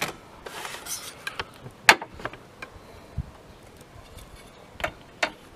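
Handling of a cardboard strip and a ruler: a brief rustle and a few sharp taps and knocks.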